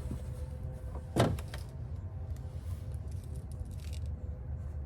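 A single sharp knock about a second in, followed by a few lighter clicks, over a steady low hum.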